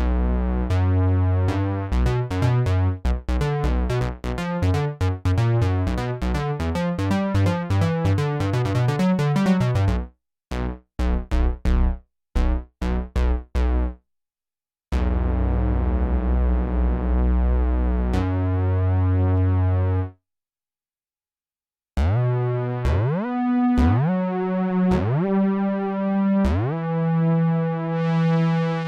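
Sequential Prophet-6 analog polyphonic synthesizer played dry, without effects: fast rhythmic chords over bass notes, then a few short staccato stabs, a held chord after a short gap, and near the end notes that slide up in pitch into each one.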